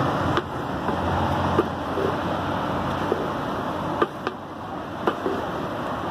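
Steady rushing background noise, with about seven sharp clicks and taps scattered through it, typical of a spoon and cooking utensils knocking against a pan of cocada as it is stirred.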